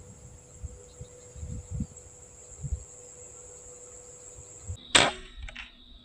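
A single sharp shot from a PCP air rifle about five seconds in, over a steady high insect drone and low thumps of the rifle being held and moved.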